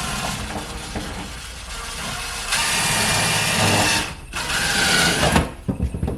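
Power drill driving a screw through thin wall paneling, in two runs with a short break about four seconds in; the second half is louder.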